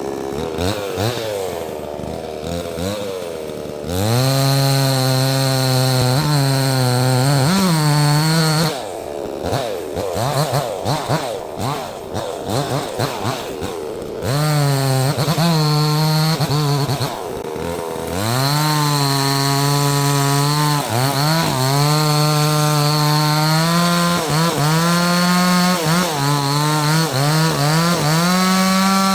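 Neotec 68cc two-stroke chainsaw cutting a small maple log into firewood. It idles for the first few seconds, then runs at full throttle through the cuts, with a stretch of uneven revving in the middle and a short dip around 17 seconds.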